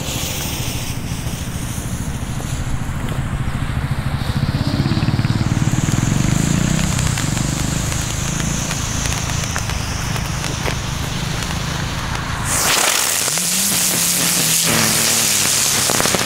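Small ground firework, a crackling spinner, burning on the ground after its fuse is lit: a steady rushing hiss of sparks. About three-quarters of the way through it turns abruptly to a much louder, sharper hiss that runs on to the end.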